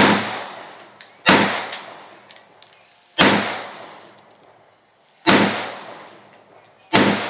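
Five pistol shots fired one at a time, about one and a half to two seconds apart. Each crack is followed by a ringing echo that fades away.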